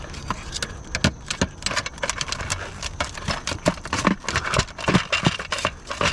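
Irregular, rapid knocks, taps and scrapes of hand tools working asphalt shingles on a roof, several sharp strikes a second.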